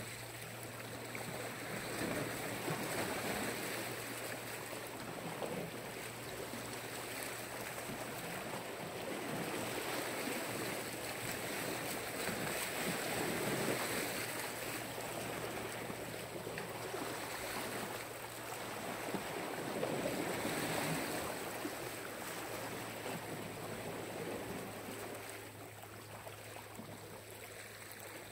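Black Sea waves washing ashore, a steady rush that swells and eases every several seconds.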